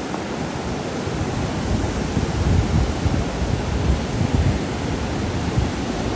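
White-water rapids on the Nile rushing steadily, with wind buffeting the microphone in uneven low gusts.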